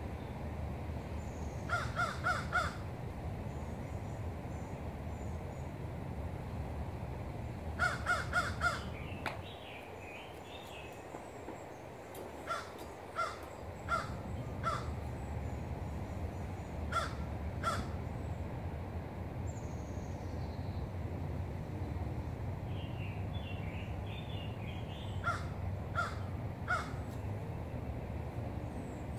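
Crows cawing, first in runs of three or four short caws, then in single caws spaced a second or so apart. Small birds chirp faintly in between, over a steady low rumble of wind that drops away for a few seconds near the middle.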